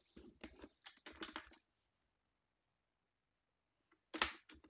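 Clicks, taps and the rustle of cardstock as fold lines are scored with a paper trimmer: a quick run of them in the first second and a half, a pause, then a louder knock near the end.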